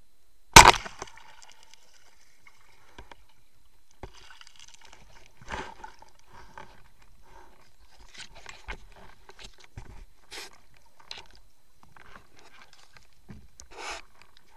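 Band-powered speargun fired underwater: one sharp, loud crack about half a second in. It is followed by scattered faint clicks, scrapes and knocks of the gun and its shaft line being handled.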